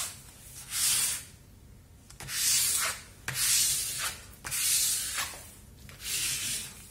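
A folded tissue rubbed in strokes over the plastic cover film of a diamond painting canvas, smoothing it flat: about five short, dry swishing rubs, roughly one a second.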